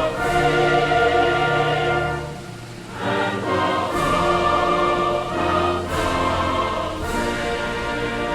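Orchestral music with sustained, choir-like chords that change every second or so, dipping briefly about two and a half seconds in.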